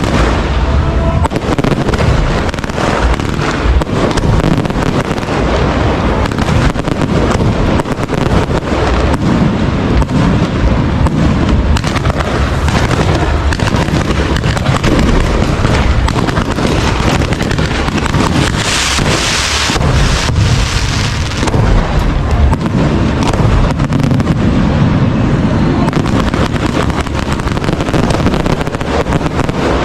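Aerial fireworks shells bursting in a dense, continuous barrage of booms and crackles. About two-thirds of the way through comes a brief spell of bright, hissing crackle.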